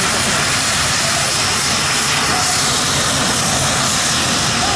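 AMX A-11 Ghibli's Rolls-Royce Spey turbofan running as the jet taxis: a steady rush of jet noise with a thin, high, steady whine over it.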